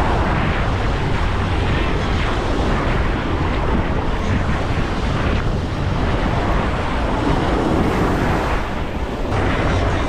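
Small waves breaking and washing up a sandy shore, with wind rumbling on the microphone.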